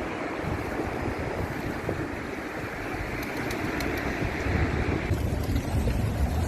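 Wind on the microphone: a steady rushing that turns into heavier low buffeting about five seconds in, with a few faint clicks.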